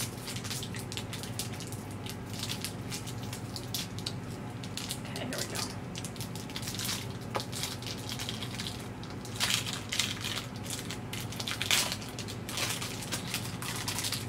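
Irregular crinkling and crunching of a packaged white chocolate wafer bar being unwrapped and bitten, with sharper crackles near the end.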